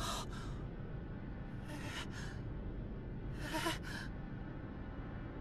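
A frightened boy's gasping breaths, three short shaky intakes about two seconds apart, over a low steady drone.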